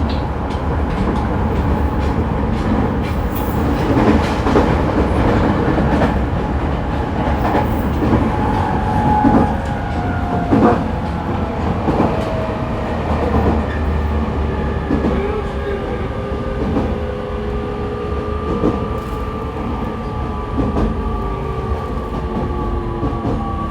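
Running sound inside an E501-series electric train's motor car: a steady rumble with wheels clicking over rail joints every second or two. Several thin whining tones from the traction motors and inverter slowly fall in pitch through the second half.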